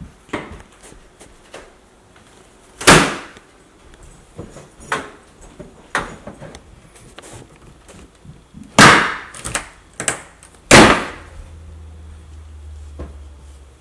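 Irregular knocks and bangs of work on an old kitchen countertop being torn out, with three loud bangs standing out among smaller knocks. A low steady hum sets in after the last bang.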